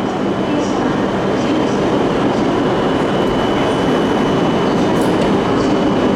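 Tohoku Shinkansen train pulling away from a station, its steady running noise building slightly as it gathers speed, with a faint steady high whine over it.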